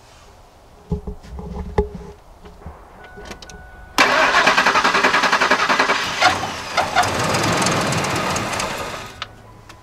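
Ford 5.4-litre V8 being cranked over by its starter after a water pump replacement. A loud, even cranking sound starts abruptly about four seconds in, runs about five seconds, then fades and stops.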